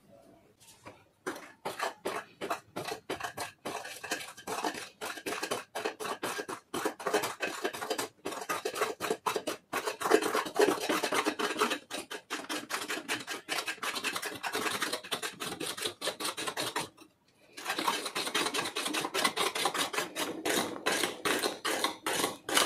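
Hand squeezing and folding a foamy slime mix in a glass bowl: a dense run of wet squishes and crackles, with a short break about 17 seconds in.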